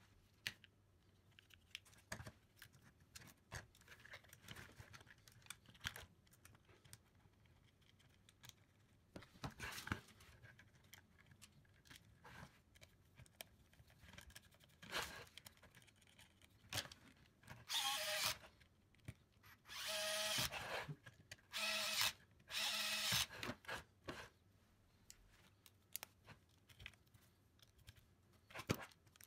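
Light clicks and knocks from handling plastic kit parts and tools, then four short rasping, squeaking bursts a little past the middle as a screw is turned into the hard plastic of an RC car chassis with a hand screwdriver.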